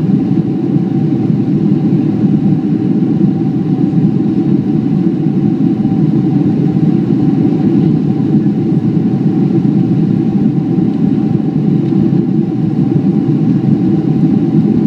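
Steady cabin roar of a Boeing 767-300 in the climb after takeoff, its jet engines and the airflow heard from a window seat over the wing, with a thin steady hum riding above the low roar.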